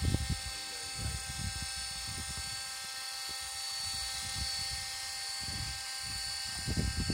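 GAUI NX4 radio-controlled helicopter flying, with a steady high whine from its motor and rotors. Gusts of wind buffet the microphone with an uneven low rumble.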